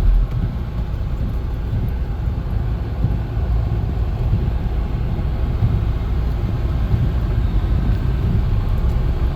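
Car heard from inside the cabin as it reverses slowly through deep snow: a steady low rumble of engine and tyres.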